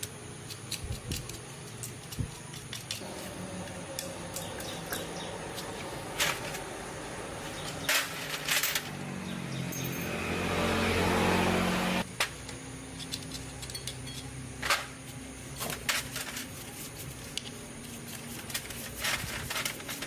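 Tools and metal parts being handled, with scattered clicks and knocks, and a mechanical whirr that builds for about three seconds past the middle and then cuts off suddenly.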